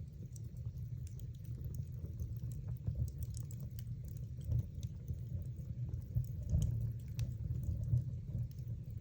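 Wood fire burning in a fireplace: a steady low rumble of the flames with frequent small crackles and pops from the burning logs, a few louder ones near the middle.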